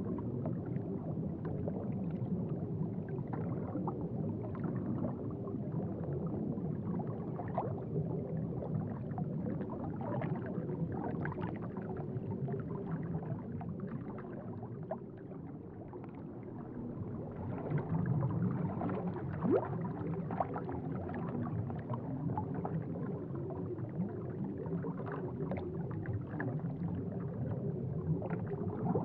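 Aquarium water bubbling and gurgling: a steady low rumble dotted with many small pops.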